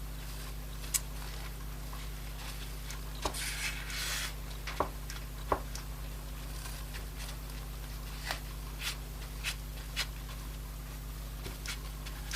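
Scattered small clicks and taps from hands and tools working on a tablet, with a brief rustle about four seconds in, over a steady low electrical hum.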